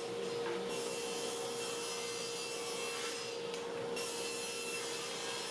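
Table saw running and cutting 3/4-inch plywood into drawer parts, a steady sawing noise with a constant hum underneath.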